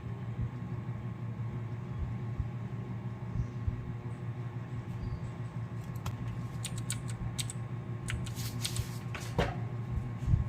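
Computer mouse and keyboard clicking in a cluster of light, quick clicks from about six to nine seconds in, over a steady low hum.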